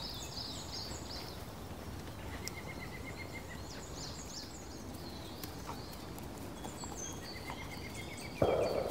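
Wild birdsong: several small birds chirping and twittering high up, with a quick run of repeated notes twice. Near the end, a sudden louder rush of noise comes in under the birds.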